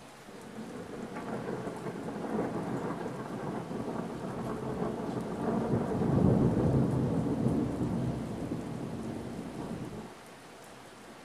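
Rolling thunder rumbling over steady rain. It builds over the first few seconds, is loudest about six seconds in, then dies away and cuts off suddenly about ten seconds in.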